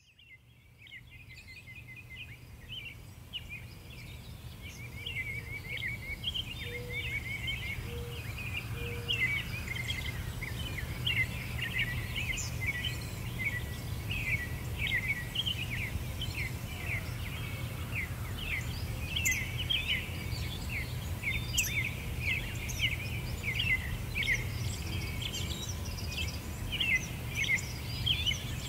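A dense chorus of small birds chirping rapidly and continuously over a steady low background rumble, fading in over the first few seconds.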